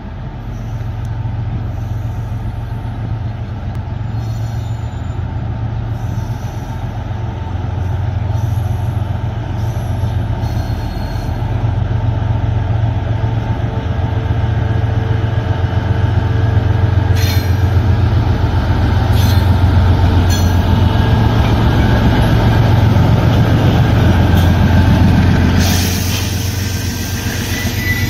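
2000 hp GE U20 diesel-electric locomotive hauling a passenger train under power, its engine making a steady low rumble that grows louder as it draws near and passes. Near the end, the rolling noise of the coaches' wheels on the rails is added.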